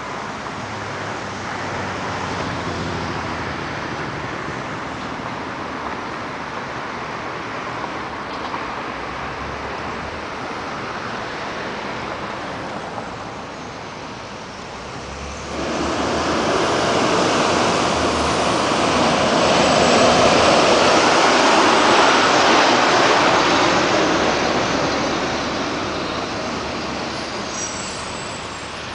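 City street traffic: a steady wash of road noise from passing cars. It jumps sharply louder just past the halfway mark, swells, and eases off again near the end.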